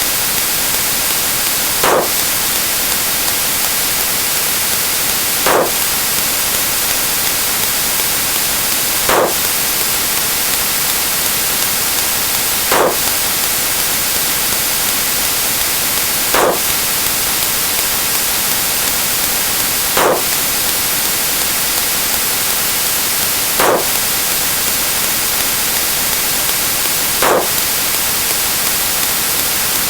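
Steady loud hiss of static-like white noise, broken by a short, slightly louder burst of noise about every three and a half seconds, eight times in all.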